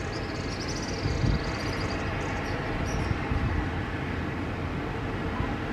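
Jet airliner engines running: a steady, low rumble with a faint high whine over the first two seconds.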